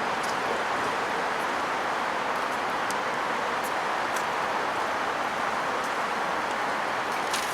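Steady rushing noise of strong wind, even and unbroken, with a few faint light ticks.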